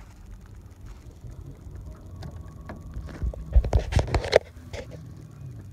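Spinning rod and reel being handled in an aluminium boat: a quick run of sharp clicks and knocks about three and a half seconds in, over a low steady rumble.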